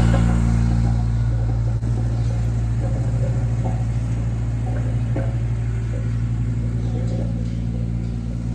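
Engine of a piece of work machinery running at a steady speed, with a few faint knocks.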